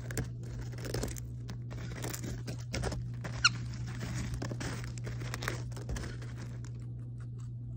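Sun conure rummaging in a foil bag of potato chips: a run of crunches and rustling crinkles of the bag and chips, with one short high squeak about three and a half seconds in.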